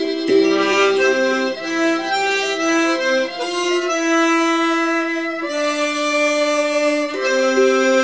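Instrumental background music: a slow melody of held notes over chords, each note lasting from half a second to a second and a half.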